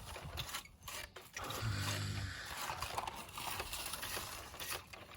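Toy excavator scooping, its bucket scraping and rasping through loose dirt in irregular strokes. A short low hum comes about two seconds in.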